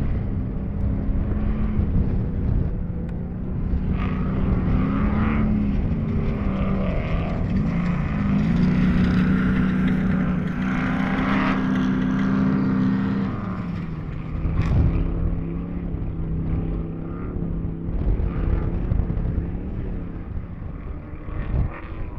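Desert off-road race vehicle engine running hard, its pitch dipping and rising with the throttle over a heavy rumble of wind and terrain. There is one sharp knock about fifteen seconds in.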